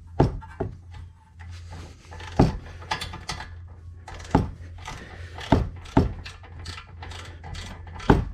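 Irregular sharp metallic knocks and clinks, about nine, as hand tools and sockets are handled against the steel brake caliper bracket and hub, over a low steady hum.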